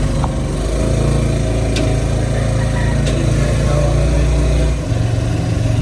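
Small motorcycle engine of a Philippine motorcycle-sidecar tricycle running steadily under way, heard from the sidecar. Its note changes about five seconds in, as with a shift or change of throttle.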